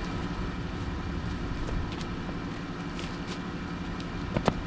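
Van engine idling steadily, with two sharp clicks near the end.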